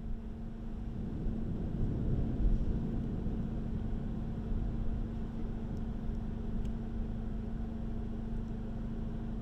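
Low rumbling wind noise on the microphone in the storm's outflow, a little stronger about two seconds in, over a steady low hum.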